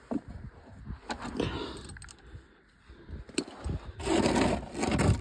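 A few sharp clicks and knocks from a ratchet and socket on an oil drain plug. Near the end comes a loud rough scraping of about a second and a half as the plastic drain pan is handled and moved under the car.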